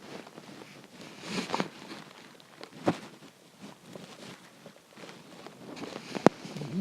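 Hungry human stomach gurgling and rumbling in irregular bursts, strongest about a second and a half in and again near the end. Two sharp clicks cut through, about three seconds in and, loudest of all, about six seconds in.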